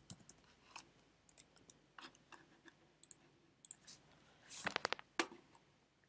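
Faint computer keyboard typing: a few scattered key clicks, then a quick run of about eight keystrokes about three-quarters of the way through.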